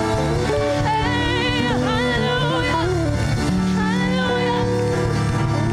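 Live gospel praise-band music: sustained chords with a voice singing wavering, drawn-out praise lines over them.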